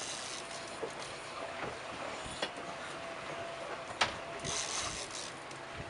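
Fishing reel being cranked to bring in a hooked fish: a faint steady gear whine with a few sharp clicks.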